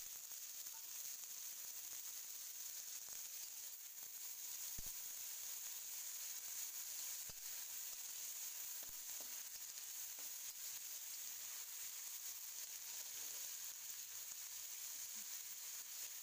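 Sliced onions sizzling steadily in hot oil in a wide metal kadai, in the early stage of frying. A few faint clicks of a spatula come through as they are stirred.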